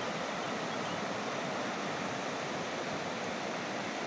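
Fast-flowing river water rushing over rocks in the shallows: a steady, even rush with no separate splashes or knocks.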